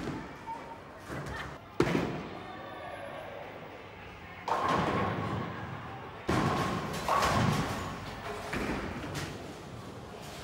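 Bowling alley: balls rolling down the lanes, with a sharp knock about two seconds in and loud clattering starting suddenly a little before and after the middle, among voices.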